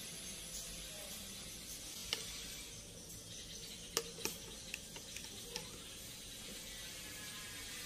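Metal spoon clicking against a plastic bowl and a plate as an egg-coated chicken cutlet is lifted out and set down: a few sharp clicks, clustered in the middle, over a steady hiss.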